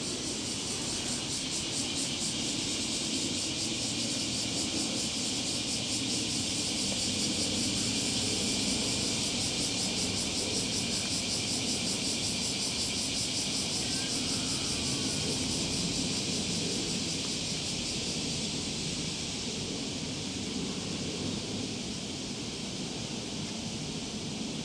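Steady outdoor background noise: a continuous high, hissing buzz with a faint low rumble underneath, unchanging throughout.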